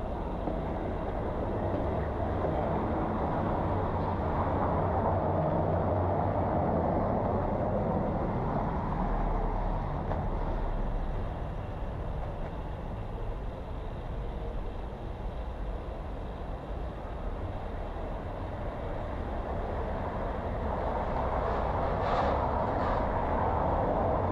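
Steady outdoor rumble and hiss without speech, swelling a few seconds in and again near the end.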